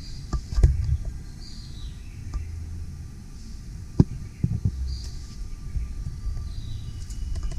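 Handling noise on a handheld recording device: a low rumble with a few sharp knocks, the loudest about half a second in and another near four seconds in.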